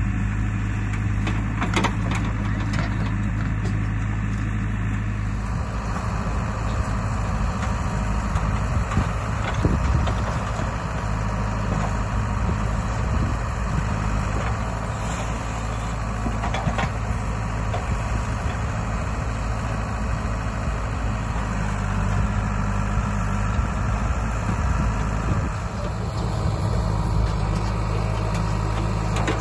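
Diesel engines of a JCB 3DX backhoe loader and a Mahindra 575 DI tractor running steadily while the backhoe digs and loads soil. A few short knocks and clatters, from clods of earth dropped into the tractor's trolley, stand out over the engines.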